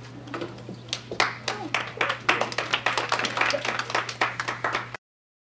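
A small group clapping, starting about a second in, with a few voices mixed in; the sound cuts off abruptly near the end.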